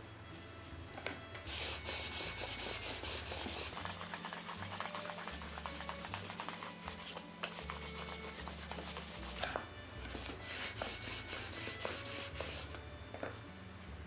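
Sandpaper rubbed quickly back and forth along the edge of a wooden board, a fast run of scratchy strokes with a brief pause about ten seconds in.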